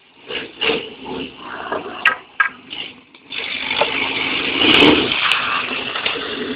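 Car driving over rough ground: a run of irregular knocks and rattles, then a steady rush of noise from about three seconds in, loudest near the five-second mark.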